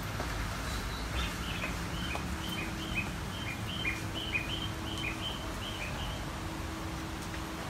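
Bird chirping: a high note and a lower note, repeated rapidly over and over for about five seconds from about a second in, over steady background noise and a faint hum.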